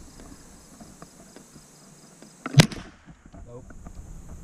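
A single .22 rifle shot about halfway through: one sharp crack with a brief tail. A steady high insect buzz runs in the background.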